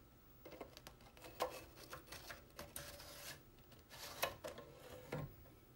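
A 5.25-inch floppy disk sliding into a Commodore 2031 disk drive's slot, its sleeve rubbing and scraping against the slot. About four seconds in come sharp clicks as the drive door lever is turned shut.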